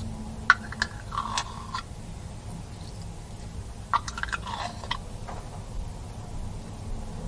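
Slime being squeezed and worked by hand, giving two short spells of wet clicks and pops, about half a second in and again about four seconds in, over a low steady hum.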